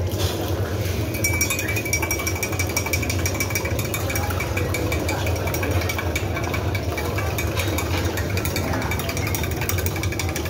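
A running machine: a steady low hum with a fast, even rattling over it. A thin high tone comes in for a couple of seconds about a second in.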